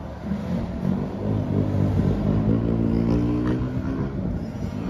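A road vehicle's engine accelerating past, its note swelling to its loudest about halfway through and fading near the end.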